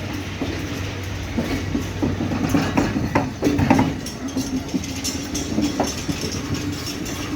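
A Sri Lanka Railways W3 locomotive-hauled ballast train running, with a steady low engine hum and irregular clacks of wheels over the rail joints.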